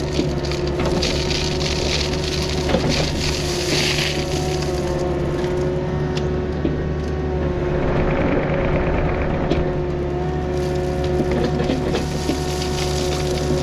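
Diesel engine of a Takeuchi earthmoving machine running steadily under work, with spells of higher hiss in the first few seconds and again about halfway through.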